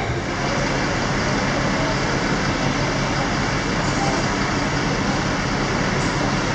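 Steady traffic noise, a constant even rumble with no breaks.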